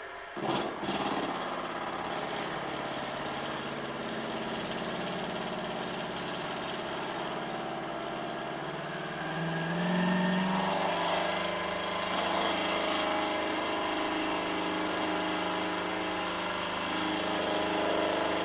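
Milling machine with its cutter facing the top of a small cast cylinder end plate, a steady machining sound of the cutter taking metal off to bring the part to height. It starts about half a second in and gets louder about halfway through as the cut bites deeper.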